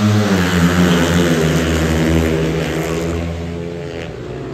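Four 500cc single-cylinder methanol-burning speedway bikes pulling away from the start gate and racing off down the straight. Their engines fade steadily as the pack draws away.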